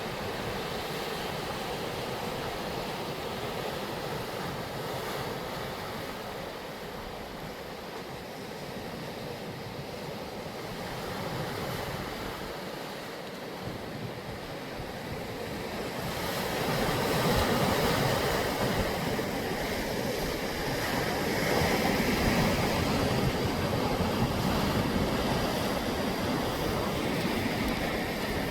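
Sea waves washing and breaking on the shore, a steady rushing surf that grows louder about halfway through, with some wind on the microphone.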